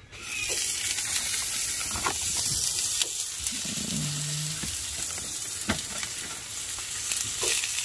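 Hot dogs frying in oil in a non-stick pan: a steady sizzle that comes up about half a second in, with scattered small pops.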